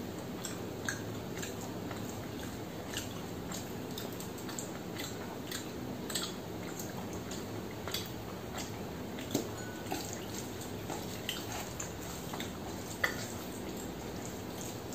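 Eating sounds: chewing and mouth clicks, with soft wet squelches of rice and dal being mixed by hand on a steel plate. Short sharp clicks come scattered over a steady background hiss, the sharpest about 13 seconds in.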